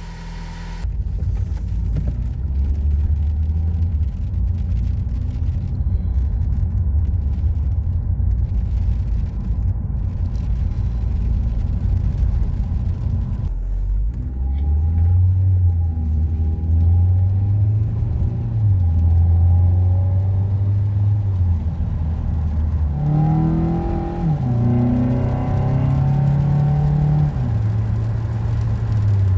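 2012–2018 Ford Focus engine with an aftermarket cold air intake, running at a steady low note at first, then revved up and down in steps from about halfway through, reaching its highest pitch a few seconds before the end.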